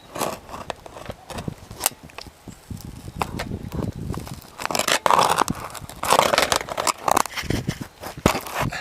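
A chisel scraping and prying under asphalt roof shingles to work a roofing nail loose, in irregular scrapes and sharp clicks that grow busier and louder in the second half.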